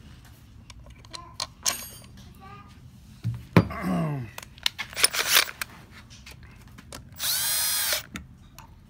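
Cordless drill-driver running one short burst, under a second, near the end, driving a screw into the plastic chamber block of a septic air pump. Light clicks of parts and screws being handled come before it.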